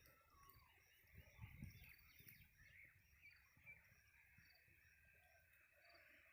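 Very faint outdoor ambience with distant bird calls and soft high chirps repeating about twice a second, plus a few low thumps between one and two seconds in.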